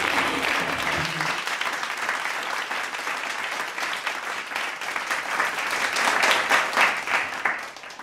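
Audience applauding after the circus act, with the act's music stopping about a second in; the clapping carries on and starts to fade near the end.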